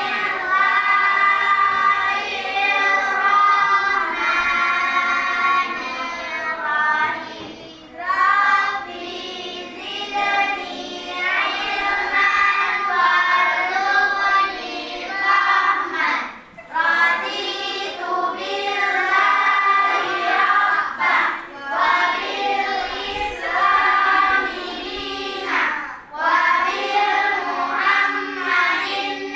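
A group of voices reciting the prayer before class together in a sung, unison chant, led by the class leader, with a few brief pauses between lines.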